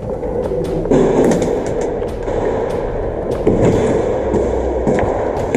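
Movement noise of an airsoft player in play on an indoor field: a steady rumble of motion and handling, with scattered sharp clicks and knocks.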